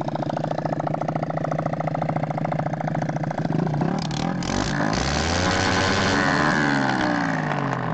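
Unmuffled small motorcycle engine idling, then revved up and back down in the middle, with a few sharp knocks as the revs rise, and settling back to idle near the end. It is running with its silencer removed.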